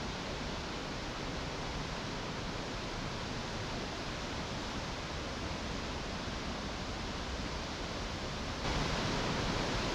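The Tulimán waterfall, a tall three-tiered cascade fed by the Quetzalpa River, falling with a steady, even rush of water that becomes a little louder near the end.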